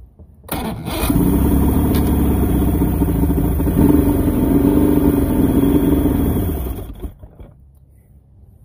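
Mercury outboard engine is cranked and catches about a second in, then runs steadily for about five seconds while it is fogged. Near the end it winds down and stops, which the owner thinks may be the carburetors running out of fuel.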